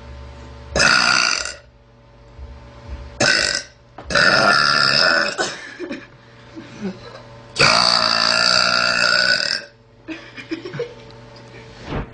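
A young girl belching loudly, several times in a row. There are two short burps, then two long drawn-out ones, the last lasting about two seconds, and a few small sounds after them.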